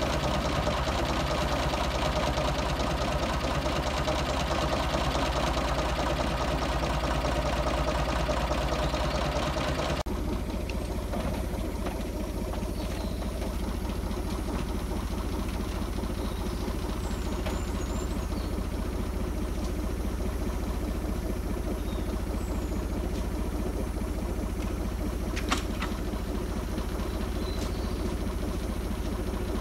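Small narrow-gauge diesel locomotive engine idling steadily with a knocking beat. About ten seconds in it cuts to a quieter steady engine hum, with a few faint high chirps and one sharp click near the end.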